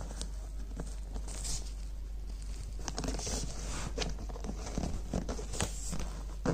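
Rustling and scraping of a backpack's nylon fabric and insulated pocket lining being handled, with scattered light taps, over a faint steady low hum.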